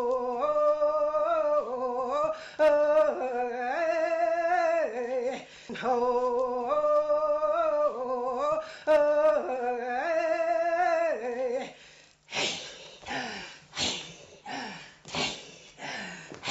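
A voice singing a slow tune of long held notes, the same phrase sung twice. About twelve seconds in it gives way to a rhythmic run of short, noisy vocal pulses, about two a second.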